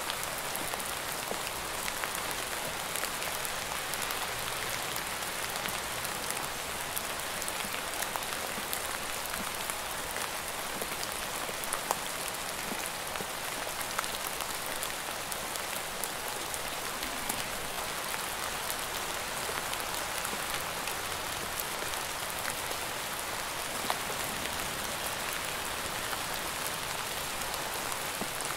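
Steady rain falling, an even hiss with many small scattered drop ticks.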